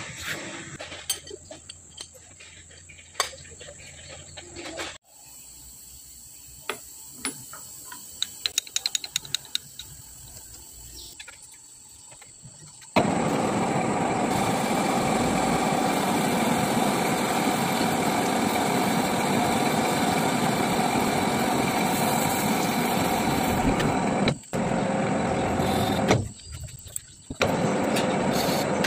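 Metal lathe turning a steel blank under a flood of coolant: a loud, steady cutting and motor noise that starts about halfway through, briefly dropping out twice near the end. Before it, metal clicks and a quick run of sharp ticks while the part is set in the chuck.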